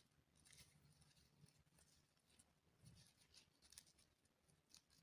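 Faint, scattered rustling and scratching of a ribbon being tied around a bundle of willow branches by hand.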